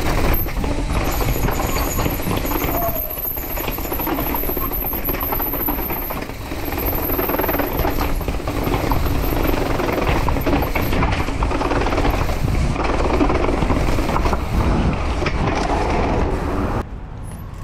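Mountain bike riding hard down stone stairs and over paving: wind rushing over the microphone, with a constant rattle and clatter of tyres, chain and frame knocking over the steps and stones. The noise drops off sharply near the end.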